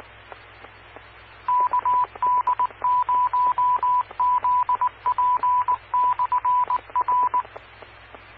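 Amateur radio repeater's automatic Morse code identifier: a single tone near 1 kHz keyed in dots and dashes, starting about a second and a half in and ending shortly before the end. Under it the open channel carries a steady hiss and low hum with scattered static clicks.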